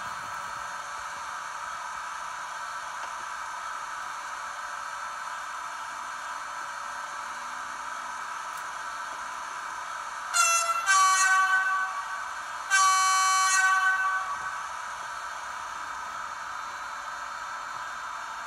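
ESU sound decoder in a Märklin 39848 H0 electric locomotive, playing a steady electric-locomotive running sound through the model's small loudspeaker. About ten seconds in, the locomotive's horn sounds: a short toot, then two longer blasts.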